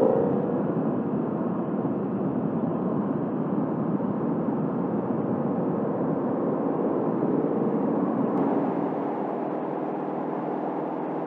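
A 2024 Ford Mustang GT's 5.0-litre V8 cruising at a steady speed: a steady drone of engine and road noise that eases a little near the end.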